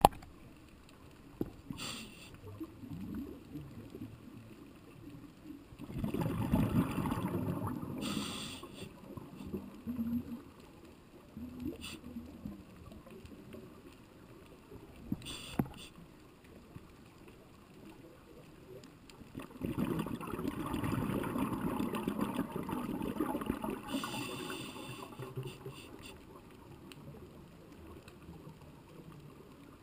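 Underwater bubbling and gurgling heard through an action camera's waterproof housing, in two long spells starting about 6 s in and again about 20 s in, with a few short knocks between.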